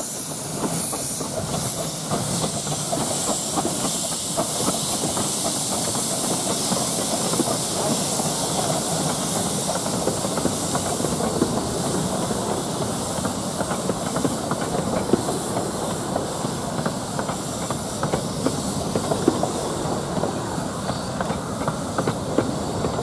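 Miniature 15-inch gauge steam locomotive pulling out with steam hissing, the hiss fading after about ten seconds. Its train of coaches follows, rolling past with steady wheel rumble and a run of clicks over rail joints and points.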